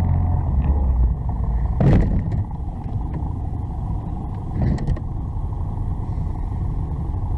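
Street traffic noise and a motor scooter's engine running close by, with a sharp thump about two seconds in and a softer knock near the middle, as the scooter comes up against the person filming.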